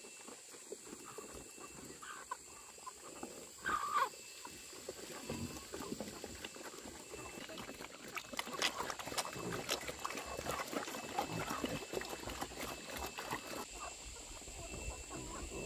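Pigs grunting, with a short squeal about four seconds in, then a stretch of busy rustling and clicking in the second half.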